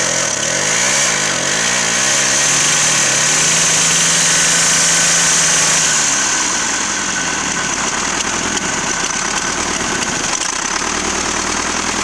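Old tractor engine running close up, louder and busier in pitch for the first half, then settling to a steadier, slightly quieter idle after about six seconds.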